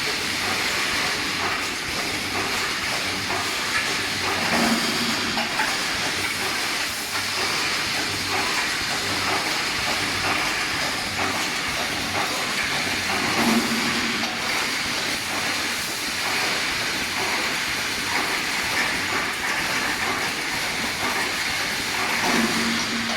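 Automatic wire mesh welding machine running: a steady hissing noise with many light ticks, and a short low hum that comes back about every nine seconds, three times.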